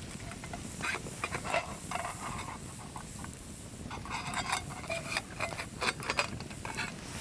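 Wood campfire crackling, with irregular small snaps and pops that come more thickly in the second half.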